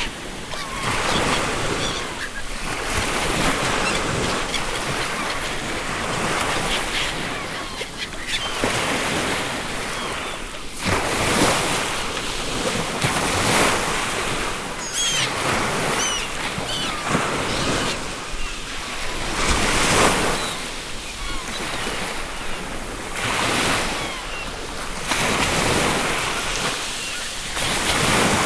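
Ocean surf: waves breaking and washing in repeated swells. Seagulls call a few times with short high cries about halfway through.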